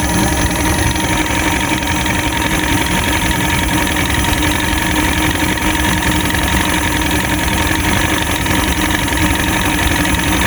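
Fishing boat's motor running steadily at a constant, low speed, with an even hum.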